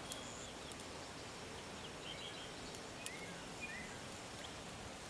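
Quiet outdoor background with a few faint, short bird chirps in the middle and a couple of small sharp clicks.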